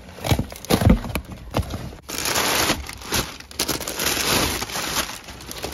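Cardboard shipping box being opened and handled, with brown kraft packing paper rustling and crumpling as a hand digs through it. A few knocks in the first second and a half, then longer stretches of rustling.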